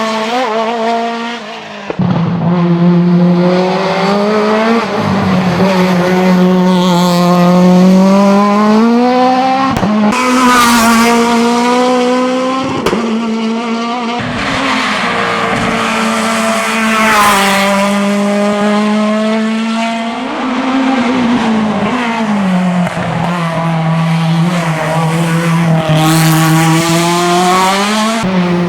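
Renault Clio Proto hillclimb race car engine running hard, its pitch rising and falling again and again as the driver accelerates, shifts gears and lifts for corners. There is a brief lift off the throttle about a second and a half in.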